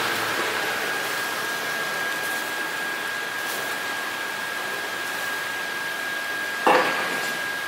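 Steady rushing hiss with a faint, steady high-pitched whine in it. A sharp clack about a second before the end.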